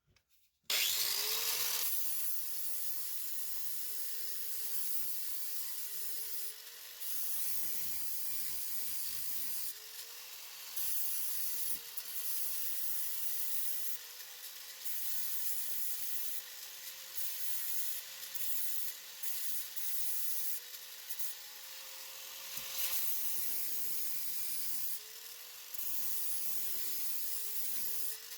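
Electric grinder spinning up and grinding weld on a steel arm: a steady motor whine with a harsh hiss of the wheel on metal, the pitch sagging and recovering each time it is pressed into the work.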